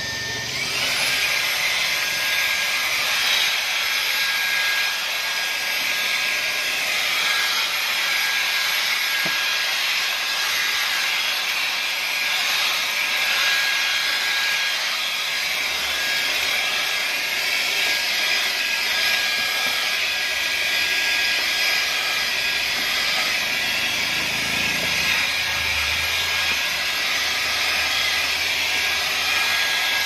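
Roidmi F8 Storm FX cordless stick vacuum cleaner running steadily: a rush of suction air with a steady high whine as its floor brush head is drawn over a rubber car floor mat.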